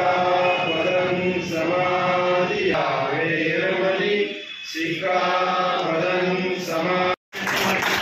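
A group of voices chanting a prayer together in unison, in long held notes with short breaks between phrases. The chanting cuts off abruptly about seven seconds in.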